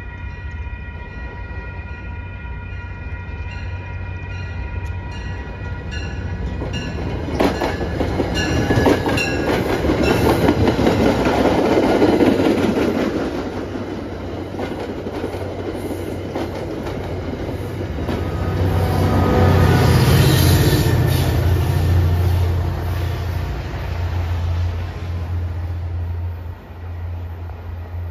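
MBTA commuter rail train sounding its horn as it nears, then its coaches passing close with wheels clacking over rail joints. About twenty seconds in, a louder low diesel engine sound swells as the locomotive goes by.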